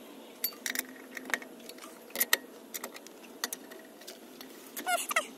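Scattered metallic clicks of a long-handled socket wrench working a wheel lug nut loose, with a short squeak near the end.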